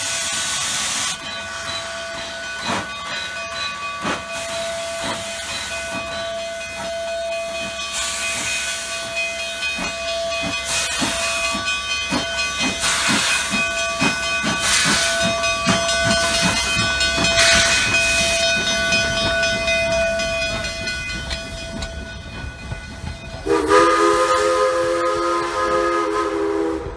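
Durango & Silverton No. 476, an ALCO K-28 narrow-gauge steam locomotive, working past with a train. Its exhaust chuffs quicken as it gathers speed, over hissing steam and a steady high whine. A little before the end its steam whistle blows one long chord of several notes.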